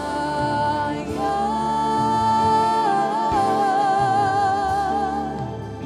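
Worship song with voices singing slow, sustained notes with vibrato; one long held note steps down in pitch about three seconds in.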